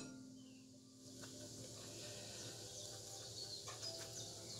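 Faint scraping of a metal spoon inside the skin of a roasted acorn squash, with a few light ticks, over a low steady hum.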